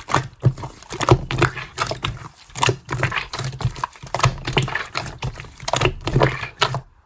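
Clear pink slime being squished and kneaded by hand with small round beads mixed through it, giving a rapid, irregular run of wet clicks and pops.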